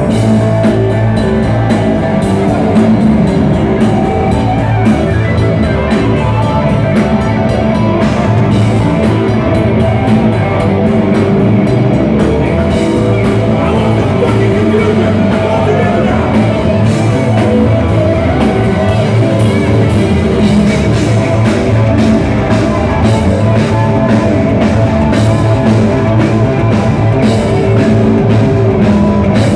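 Hard rock band playing live and loud: distorted double-neck electric guitar, double-neck electric bass and a drum kit, driving steadily without a break.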